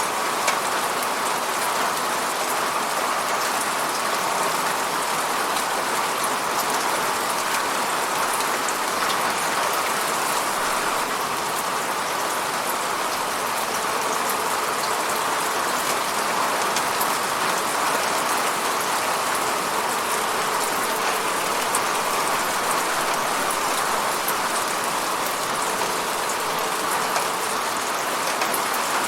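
Steady rain hitting a window: an even, dense patter with many small drop ticks.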